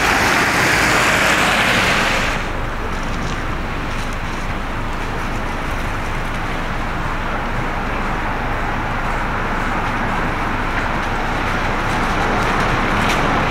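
A car passing on a wet, slushy road, its tyres hissing, then a sudden drop about two seconds in to a steadier, quieter hum of distant traffic.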